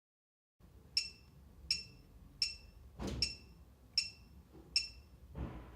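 Wireless security system keypad beeping once per key press as a code is keyed in, short high beeps about one every 0.7 seconds, with a soft knock about three seconds in.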